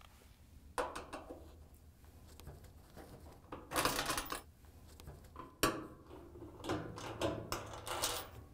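Phillips screwdriver turning out a sheet-metal screw from a dryer's front panel: small metal clicks and scraping, with a short scrape near the middle and a sharp click just after it.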